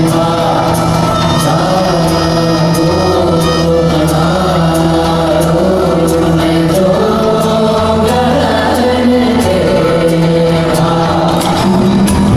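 Music with group singing over held notes and a steady, light beat.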